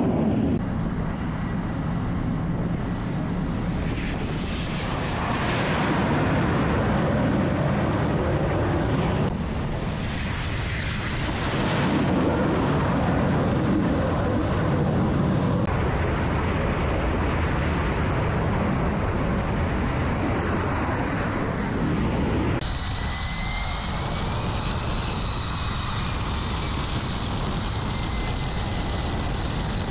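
Jet engine noise on an aircraft carrier's flight deck from F/A-18 Super Hornets: a loud, continuous roar with a high turbine whine that bends in pitch. In the last third several high whining tones ride over the roar, from a Super Hornet running its engines on the catapult.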